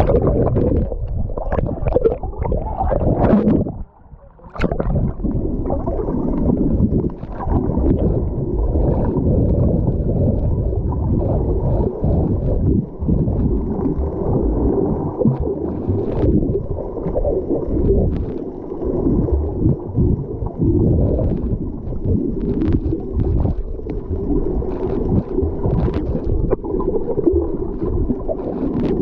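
Water sloshing and gurgling, heard muffled through an action camera's housing just under the sea surface: a steady low rumble with scattered small clicks and a brief lull about four seconds in.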